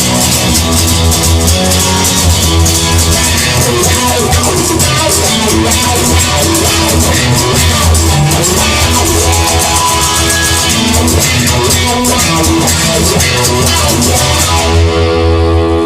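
Rock-style music with guitar, bass and drums. Near the end the drums and cymbals drop away, leaving held notes.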